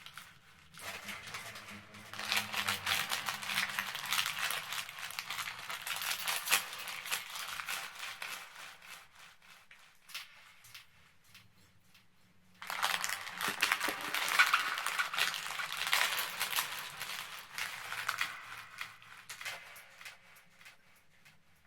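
Close-miked crunching and chewing of Chips More chocolate chip cookies, in two bouts of several seconds each with a short pause between.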